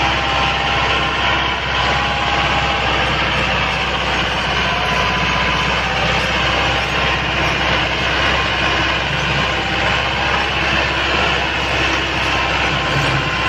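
Massey Ferguson 385 tractor's four-cylinder diesel engine running steadily under load as it pulls a heavily loaded trolley over ploughed ground.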